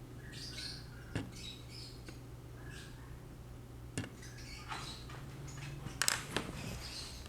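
Small sharp clicks and taps of plastic earphone-remote parts being handled during reassembly, several of them, two in quick succession near the end. High squeaky chirps come and go throughout, over a low steady hum.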